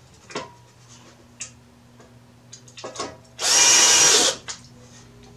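18-volt cordless drill driving a screw into the blower's cover: one burst of the drill motor spinning for about a second, more than halfway in, after a few light clicks of the bit and screw being set.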